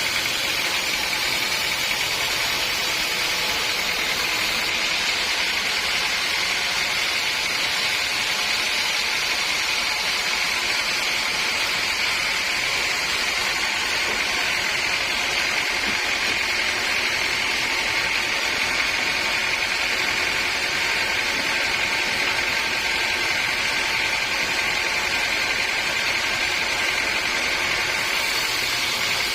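Sawmill machinery running steadily, with a constant high whine over a hiss and no change in level.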